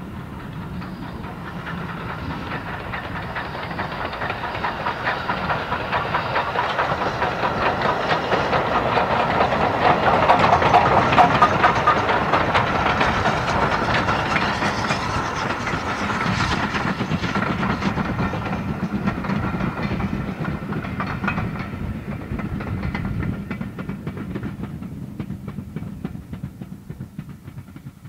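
BR Standard 4MT 2-6-4 tank steam locomotive working a passenger train past: steam exhaust and carriage wheels clattering over the rail joints. It grows louder to a peak about ten seconds in, then fades as the train draws away.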